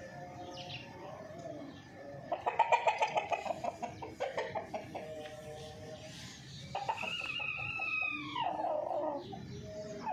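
Chickens clucking in a rapid run of calls about two seconds in, then a rooster crowing once, a call of about two and a half seconds that drops in pitch at the end.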